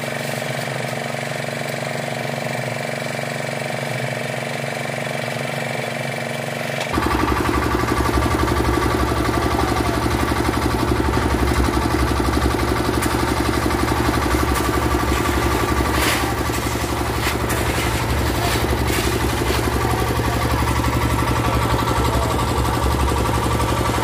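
Engine of a portable concrete mixer running steadily. About seven seconds in the sound jumps abruptly to a louder run with a fast, even beat. A few sharp knocks come near the middle.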